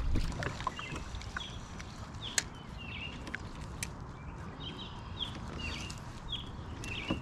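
A bird chirping: short high calls repeated about twice a second, over a low steady rumble with a few faint clicks.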